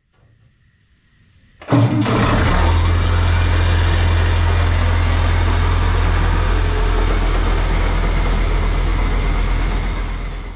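Diesel engine of a red International Harvester cab tractor starting up about two seconds in, then running steadily at idle, fading out near the end.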